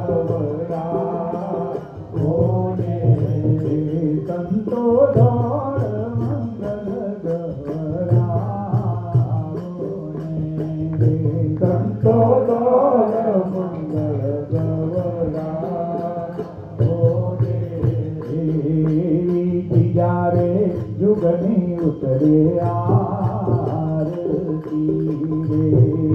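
Devotional aarti hymn being sung, with musical accompaniment.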